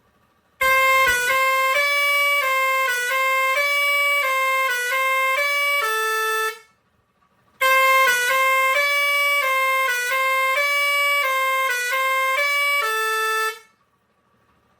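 Pioneairs 632S digital musical air horn with six steel trumpets playing a melody of stepped notes. The same tune sounds twice, each time for about six seconds, with a short pause between.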